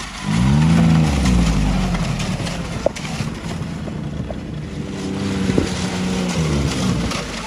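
Arctic Cat four-stroke snowmobile engine revving up about half a second in, then running steadily, with its pitch rising and falling again as the throttle is worked near the end.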